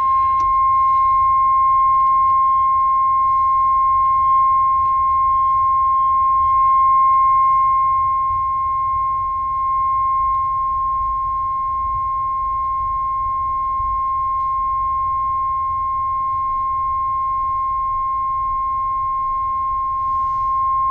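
Steady test tone of about 1 kHz from an audio tone generator, with a faint overtone an octave above, fed into a CB radio's mic input to check its AM modulation. A low hum lies beneath it.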